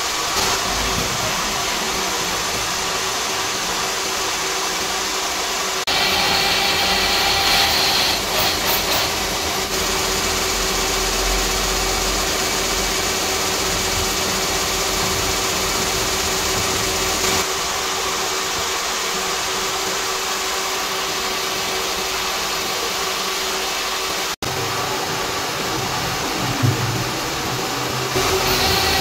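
Gear-cutting machine running steadily as a disc milling cutter cuts teeth into a steel spur gear blank: a steady hum under an even hiss of cutting. The sound shifts abruptly in level and tone several times, and drops out for an instant about five seconds before the end.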